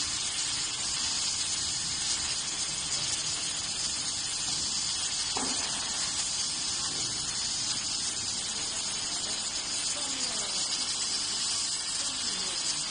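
Fiber and CO2 laser cutting machine cutting plywood, giving a steady, even hiss.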